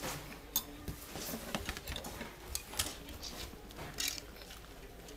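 A few faint, irregular light taps and clicks over low room noise.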